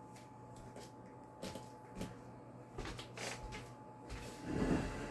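A few light knocks and clicks, then a louder rustling shuffle near the end: handling noises.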